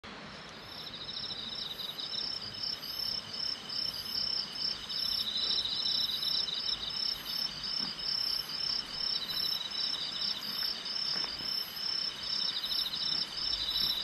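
Several insects, crickets among them, singing together, each in its own high-pitched pulsing rhythm that repeats steadily. Underneath is a steady rush of flowing stream water.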